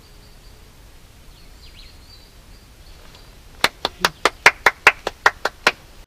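A person clapping their hands, a quick even run of about eleven sharp claps at some five a second, the old way of calling for someone at an unattended entrance. Faint bird chirps come before the claps.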